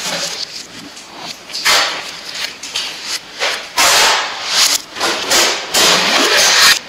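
Adhesive tape being pulled off its roll and wound around a post, in several drawn-out, noisy pulls of about a second each, with rustling from handling the roll.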